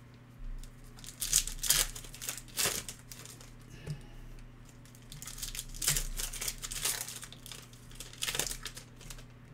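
Foil wrappers of 2021-22 Panini Elite basketball card packs crinkling and tearing as packs are opened, in a series of short rustling bursts a second or two apart.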